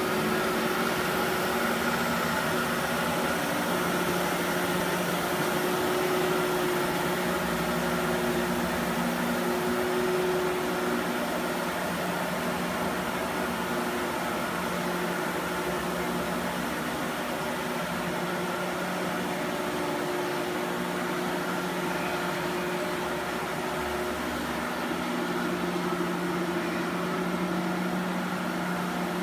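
Factory Cat XR40C ride-on scrubber dryer running while it scrubs a wet concrete floor: a steady motor hum and whine with the rush of its vacuum, getting a little quieter about a third of the way in as the machine moves off.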